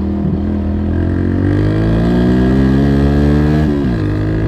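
Suzuki Gixxer's single-cylinder engine pulling away, the revs climbing for about three seconds and then dropping sharply as the rider shifts up.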